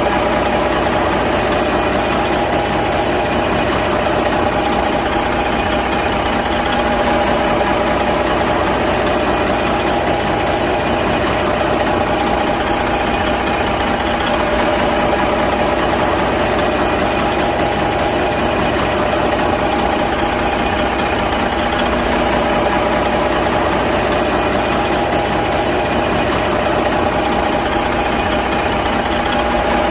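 Big truck diesel engine idling steadily, with an even rattly clatter and a constant hum, no change in speed.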